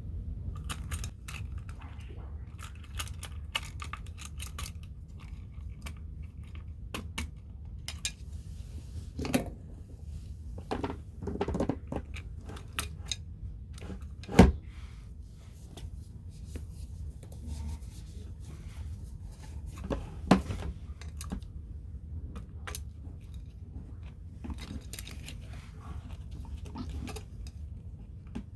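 Scattered clicks, knocks and light rustling of objects being handled during cleaning, with two sharper knocks, one about halfway through and one later, over a low steady hum.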